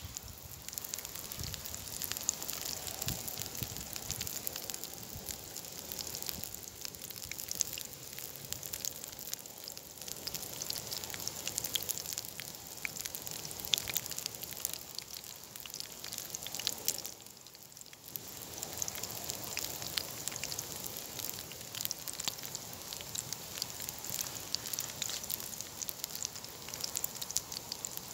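Square slices of sausage meat frying in a pan on campfire embers: a steady sizzle dotted with small crackles and pops from the meat and the fire. It goes briefly quieter a little past the middle.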